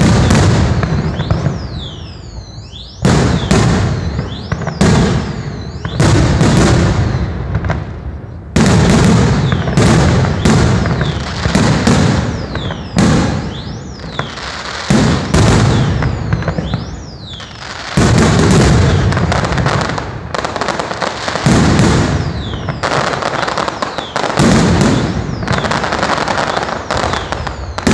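Aerial fireworks shells bursting overhead: a sharp bang every one to three seconds, each trailing off into crackling before the next.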